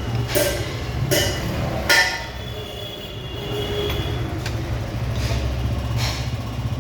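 A steady low engine hum, with sharp metallic clinks of tools: three in the first two seconds and three more in the second half.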